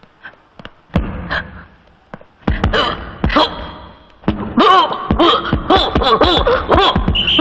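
Punches landing in a boxing fight: a few dull, heavy thuds, then from about halfway a rapid run of short, repeated shouts.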